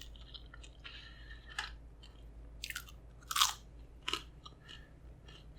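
Close-miked chewing and crunching of food by a person eating, with a few crisp crunches, the loudest about three and a half seconds in.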